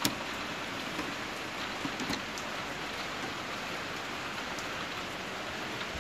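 Steady rain falling, an even hiss throughout, with a sharp click right at the start and a couple of small knocks about two seconds in.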